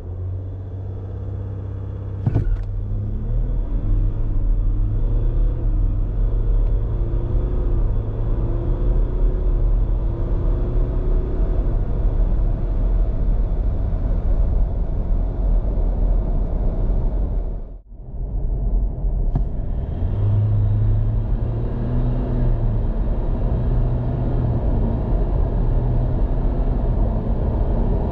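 Cabin sound of a 2023 Ford Everest's 3.0-litre turbo-diesel V6 accelerating hard from standstill, its note climbing and dropping back with each upshift of the 10-speed automatic. About 18 seconds in it cuts to the Everest's 2.0-litre twin-turbo four-cylinder diesel pulling under full acceleration at highway speed.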